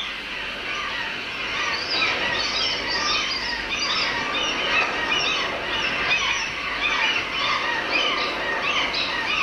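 A seabird colony calling: many short, high calls overlapping in a dense, continuous chorus.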